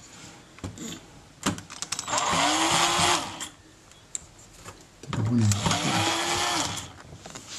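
Cordless drill/driver running twice, each run about a second long, spinning up, holding and winding down as it backs screws out of a mixing console's circuit boards. A few light clicks of handling before the first run.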